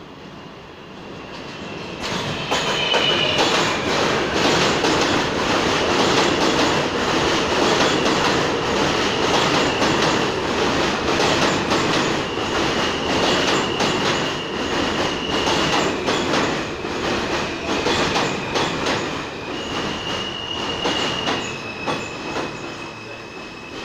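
R160A subway train pulling into the station and slowing, its wheels clacking rapidly over the rail joints, with high-pitched wheel and brake squeals coming and going. It gets loud about two seconds in and eases off near the end as the train comes to a stop.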